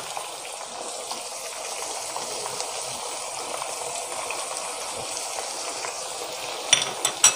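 Mutton pieces sizzling steadily in hot mustard oil in a kadhai, with a few sharp clicks near the end.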